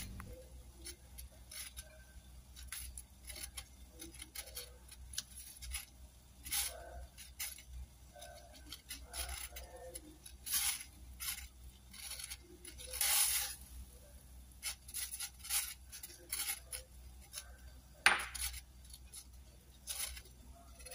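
Water boiling in a stainless steel pot with dough balls in it: faint, irregular small pops and ticks, with a sharper click about eighteen seconds in.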